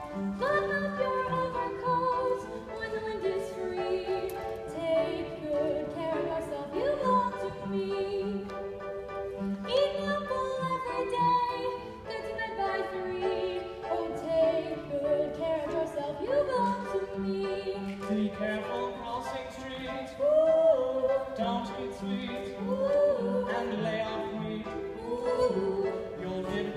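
A woman singing a show tune with vibrato, over live instrumental accompaniment.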